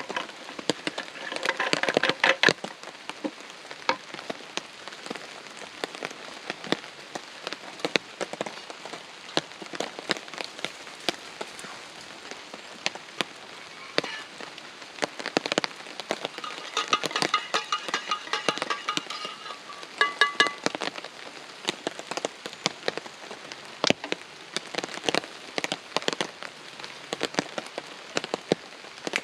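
Heavy rain hitting a tarp shelter: a dense, steady patter of sharp drop hits. Twice a brief pitched sound rises over it, about two seconds in and again from about seventeen to twenty seconds in.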